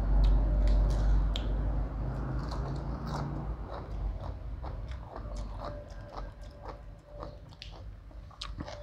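A person chewing and biting crisp raw leafy vegetables (lettuce and Chinese cabbage) close to the microphone, with many short crunches.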